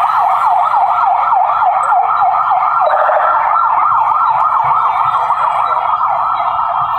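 Electronic siren yelping: one tone sweeping rapidly up and down, about four or five sweeps a second, with the rhythm of the sweeps changing about three seconds in.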